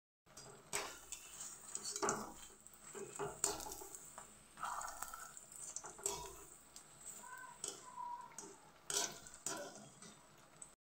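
A metal spatula scraping and knocking against a kadhai at irregular moments as battered bottle gourd slices deep-fry, over a faint sizzle of hot oil.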